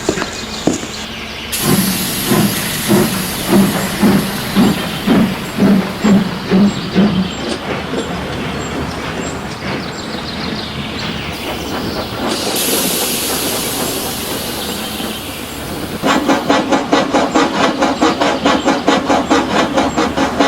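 Steam locomotive sound effects: a run of even chuffs at about two a second, then a steady hiss of steam, then faster chuffs from about four seconds before the end.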